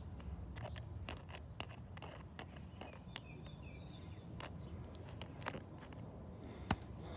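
Screwdriver turning the screw of a stainless worm-drive hose clamp on a reinforced hose: faint, irregular metallic clicks as the screw works through the band's slots, with one sharper click near the end.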